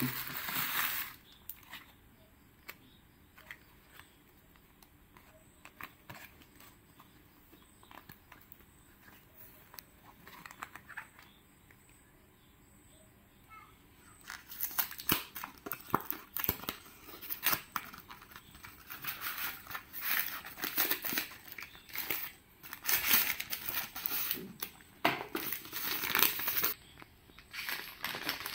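Thin plastic carry bag rustling briefly, then faint handling, then a long stretch of loud, irregular crinkling and rustling as a foil-lined food pouch and the shawarma's paper wrapper are handled and opened.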